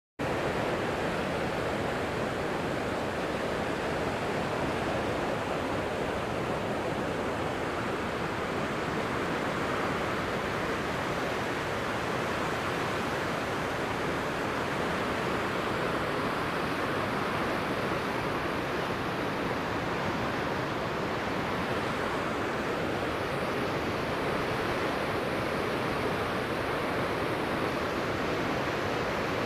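Turbulent water rushing through the open sluice gates of a barrage and churning downstream as white water, a steady, unbroken rush.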